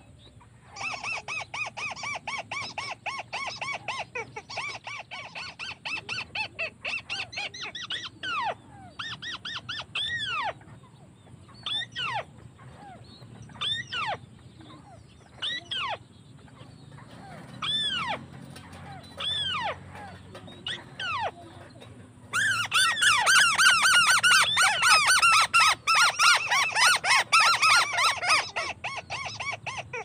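Crake calls: a long run of rapid chattering trills, then single falling calls every second or two, then a louder, dense burst of chattering in the last third.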